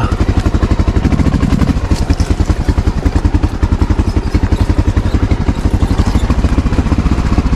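Honda XR650L's single-cylinder four-stroke engine running at low revs, a steady, even train of firing pulses.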